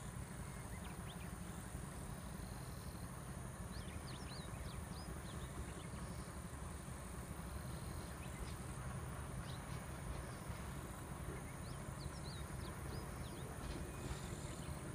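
Summer countryside sound: insects keeping up a steady high buzz, with short bird chirps coming in small clusters several times, over a low steady rumble.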